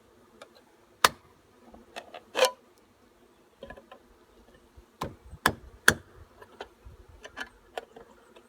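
Irregular sharp taps and knocks, about a dozen, the loudest about a second in, as a hole is poked in the tin can of sugar syrup that came with a bee package. A steady hum of honeybees runs underneath.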